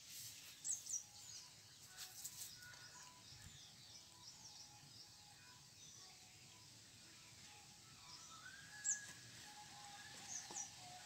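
Quiet outdoor ambience with birds chirping now and then: a couple of short, high chirps about a second in and again near the end, over a faint steady hiss.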